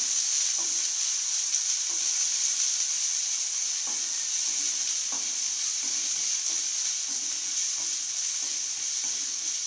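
Chopped onions sizzling steadily in hot oil in a non-stick kadai, with soft, irregular scrapes of a spatula stirring them; they are being sautéed until they turn brown.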